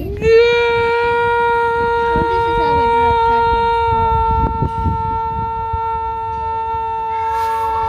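A single long, steady horn-like note, starting abruptly and held at one pitch throughout.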